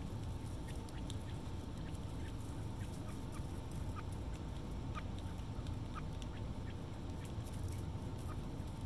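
Young chicks giving short, thin peeps, a dozen or so scattered through, over a steady low rumble.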